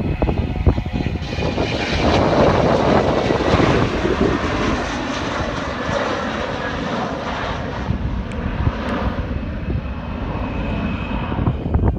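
Jet airliner with two rear-mounted engines taking off at full thrust: a loud jet roar that swells about a second in as it rolls and lifts off, then carries on a little lower as it climbs away. A thin engine whine is heard near the start and again near the end.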